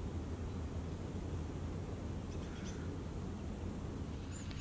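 Outdoor ambience: a steady low rumble of wind on the microphone, with a faint short bird chirp about two and a half seconds in.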